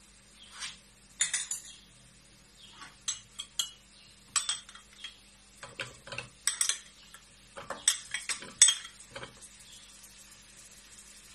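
A wooden spoon and a small bowl clinking and knocking against a metal cooking pot as ingredients are stirred and tipped in: an irregular run of sharp clinks and knocks that stops about nine seconds in.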